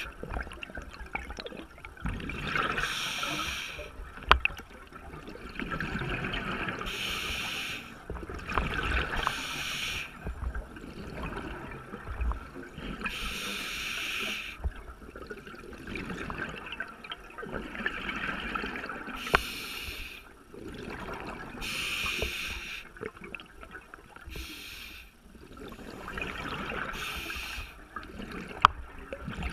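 A scuba diver's regulator breathing, heard underwater: hissing breaths and bubbly exhalations about every two to five seconds. There are a few sharp clicks and a low rumble of water moving against the housing.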